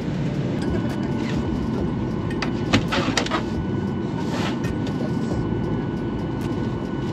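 Steady low hum inside a parked airliner's cabin, with a few sharp clicks and knocks about three seconds in as an overhead luggage bin is handled and shut.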